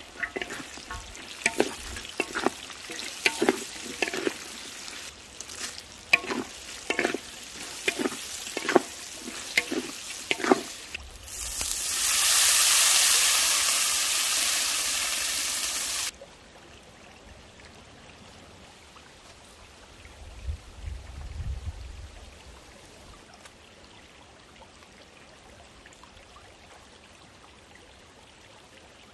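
A wooden spatula stirring and scraping a hot iron wok, about one stroke a second, over food sizzling in oil. About eleven seconds in, water is poured into the hot wok with a loud steady rush for about five seconds that stops suddenly, and it is much quieter after.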